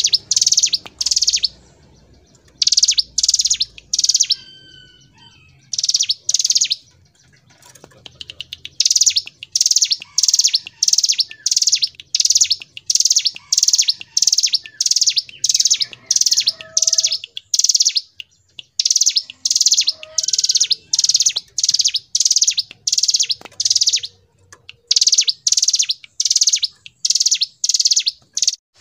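Ciblek gunung, a prinia, singing in long 'ngebren' runs: loud, rapid, high notes repeated about three to four a second, broken by a few short pauses, with fainter, lower chirps in between.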